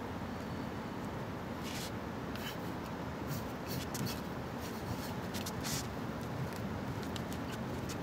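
Short airy swishes of sticks being twirled through the air. A handful of them come irregularly from about two seconds in, over a steady low background noise.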